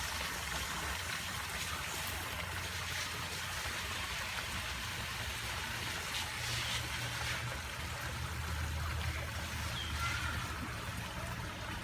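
Backyard rock-garden waterfall and stream, water running and splashing steadily over the rocks.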